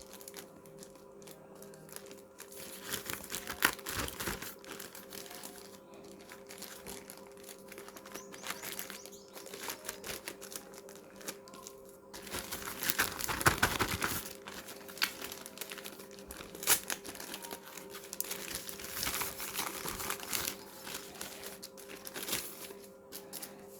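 Packaging wrap around a laptop screen panel crinkling and rustling as it is handled and pulled away, in irregular spurts with a louder, busier stretch about halfway through.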